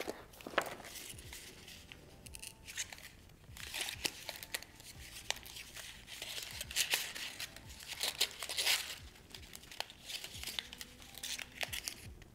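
Sealed antiseptic wipe packets crinkling and rustling as they are pulled from a fabric pouch and shuffled between the hands, in irregular bursts about every second or two.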